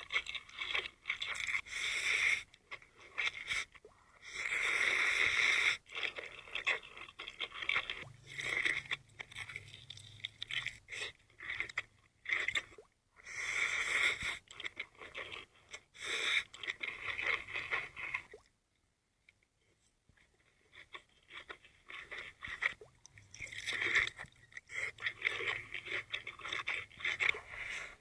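Close-miked eating sounds: crunching and chewing with crackly clicks, breaking off briefly about two-thirds of the way through before resuming.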